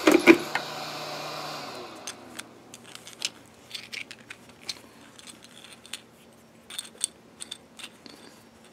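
A hot air rework station's blower runs steadily and stops about two seconds in. It is followed by scattered light clicks and clacks of 3D-printed PLA keyrings being picked up and dropped into a cloth drawstring bag.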